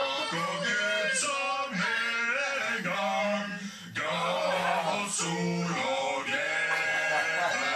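A man singing, holding some long notes, with a little music behind.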